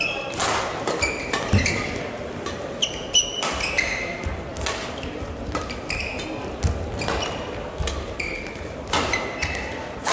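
Badminton rally: sharp racket strikes on the shuttlecock every second or two, with players' shoes squeaking and footfalls on the court floor between the hits.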